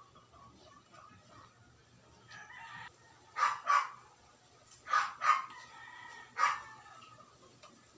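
A dog barking in short pairs, with a rooster crowing more faintly behind it.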